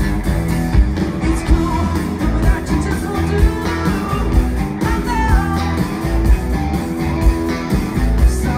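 Live rock band playing: electric guitars and bass over a steady kick-drum beat, with a man singing.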